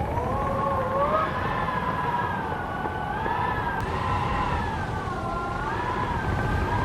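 Howling wind: a wavering, whistle-like tone that slowly rises and falls in pitch over a steady low rushing noise.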